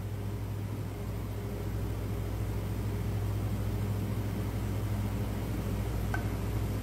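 A steady low machine hum with an even hiss, like a fan or motor running, with no change in pitch or level.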